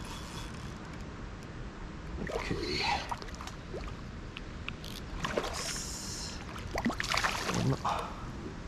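Water splashing and sloshing beside a small boat in three short bursts, with a few faint knocks in between.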